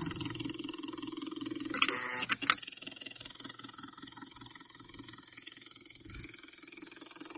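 IV infusion pump running, its pumping motor making a steady, rapidly pulsing low hum. A quick cluster of sharp clicks sounds about two seconds in.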